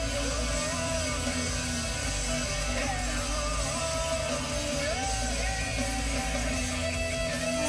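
Music with a singing voice, a song with guitar, at a steady moderate level.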